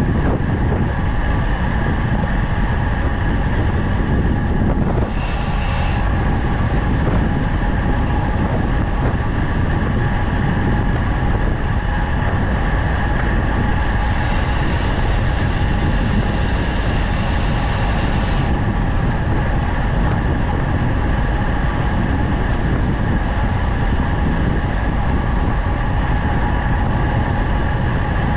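Wind rushing over the helmet or handlebar camera's microphone as a road bike descends at speed, with a steady whirr underneath. A brighter hiss joins briefly about five seconds in, and again for about five seconds in the middle.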